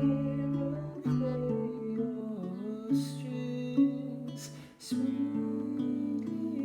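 Acoustic guitar playing held chords, with a man singing along in a live performance of a folk song.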